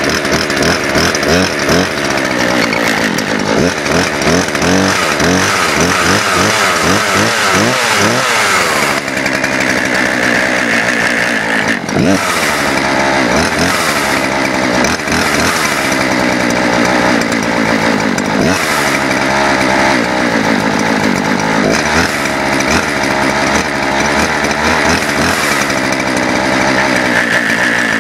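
Poulan Pro two-stroke gas chainsaw running loudly, its engine revved up and down over and over, then held mostly at high revs with brief dips.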